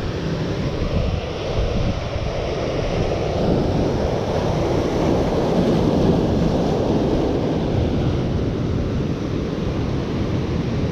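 Surf washing onto the beach, with wind buffeting the microphone; the wash swells for a few seconds in the middle.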